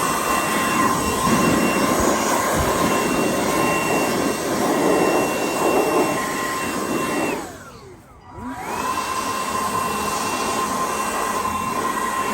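Milwaukee M12 cordless blower run twice, blowing packed sawdust out of a table saw's dust port. Each run starts with a rising whine, holds a steady high whine over a rush of air, and winds down with a falling whine: a long burst, then after a short pause a second, shorter one.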